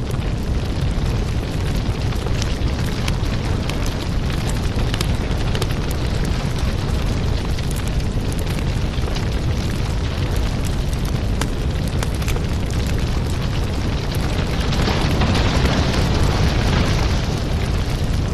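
Firewood burning: a steady low rumble of flames with frequent sharp crackles and pops. The hiss grows louder about fifteen seconds in.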